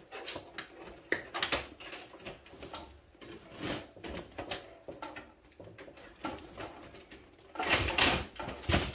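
Wire cutters snipping wires inside a gutted printer, giving a string of sharp clicks and knocks against its plastic and metal parts, with a louder, longer clatter near the end.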